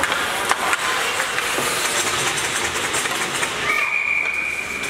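Ice hockey play: a steady scraping hiss of skate blades on the ice, with scattered sharp clicks of sticks and puck. Near the end a single steady high whistle blast, the referee's whistle stopping play.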